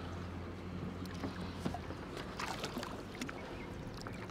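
Hooked catfish splashing at the water's surface beside a kayak as it is reeled in. There are soft splashes and small clicks over a low hum that fades about two seconds in.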